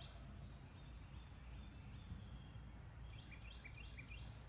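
Faint outdoor ambience: a steady low rumble with birds singing. One bird gives a quick series of short chirps about three seconds in.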